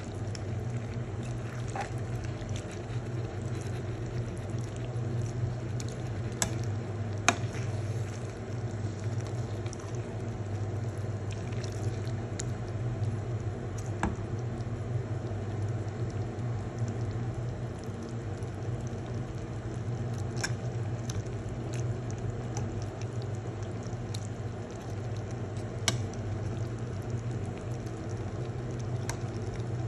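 Thick, creamy sauce bubbling and simmering in a pan, with a steady low hum beneath it. Several sharp clicks are scattered through it, one of them as a spatula goes into the pan.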